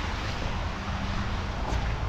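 Steady low rumble of an idling diesel truck engine, under an even hiss of rain and outdoor noise.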